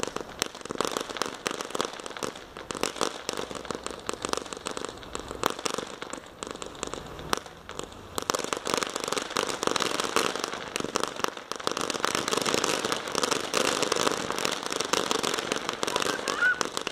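Ground fountain firework spraying sparks with a dense crackling hiss, growing louder and denser about halfway through as it flares bright white.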